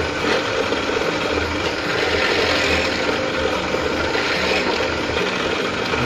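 Bench drill press running steadily, its electric motor and spindle giving a constant mechanical hum.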